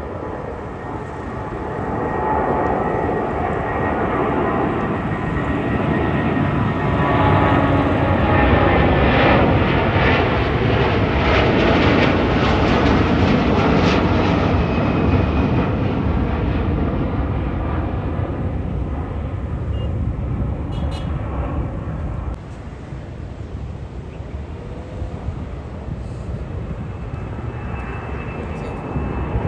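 Airplane engines passing close by: a loud roar with a steady whine that swells to a peak about ten seconds in and then fades, dropping off suddenly about three-quarters of the way through before an engine whine builds again near the end.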